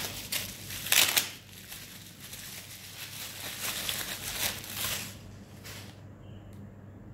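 Plastic packaging crinkling and rustling as it is handled and unwrapped, loudest about a second in and dying away after about six seconds.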